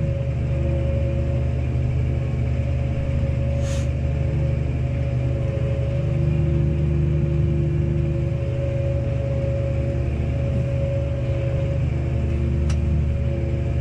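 Case Maxxum 140 tractor running steadily at working speed while driving a PTO rake: a constant low engine drone with a steady whine above it. There are two brief sharp ticks, one about four seconds in and one near the end.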